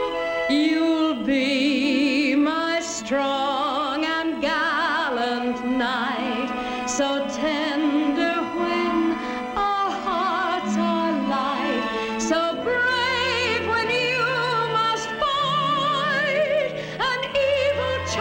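Orchestral film-score music, a lush melody with strong vibrato over sustained chords, with deep bass notes coming in about two-thirds of the way through.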